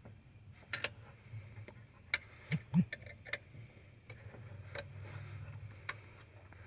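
Scattered sharp clicks and taps from hand work on a column-mounted ignition switch as its mounting screws are tightened, about a dozen at irregular intervals. A faint low hum runs for a couple of seconds past the middle.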